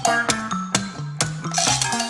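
Upbeat bumper music: a bass line stepping between notes under sharp clicking percussion, about four clicks a second.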